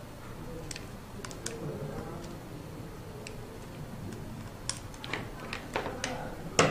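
Scattered light clicks and taps of small parts being handled, as the camera module and its bracket are set against a hexapod robot's metal frame. A cluster of sharper clicks comes in the last two seconds, the loudest just before the end.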